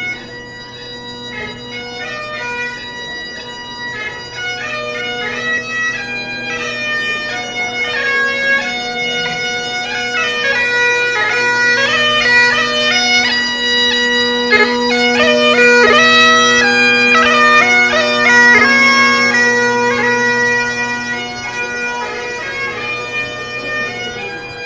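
Great Highland bagpipe playing a tune over its steady drones, getting louder toward the middle and easing off near the end.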